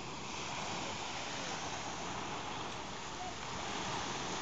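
Small waves washing onto a sandy beach: a steady, even rush of surf.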